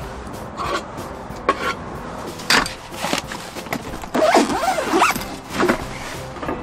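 Zipper on a black fabric Blackdog camping storage bag being pulled in several quick strokes, the longest and loudest about four seconds in.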